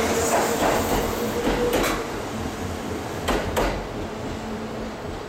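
Kintetsu limited express electric train pulling out of the station, its running rumble fading as it leaves, with pairs of sharp clacks as wheelsets cross rail joints about two seconds in and again about three and a half seconds in.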